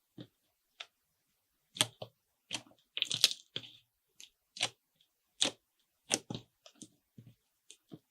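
Slime being worked by hand, giving irregular sharp clicks and pops, with a quick cluster of them about three seconds in.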